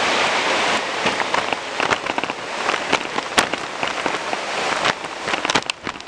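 Footsteps crunching on gravelly stone steps, with gear rustling against the handheld camera: an irregular run of crackling clicks over a steady hiss that is strongest in the first second.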